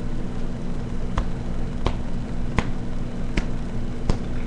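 Five sharp clicks, evenly spaced about three-quarters of a second apart, over a steady low hum.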